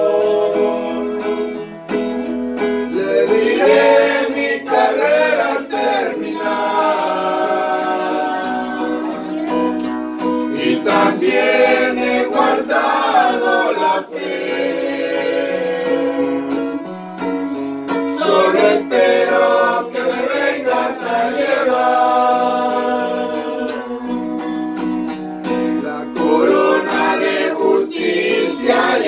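Christian hymn: singing over plucked guitar accompaniment.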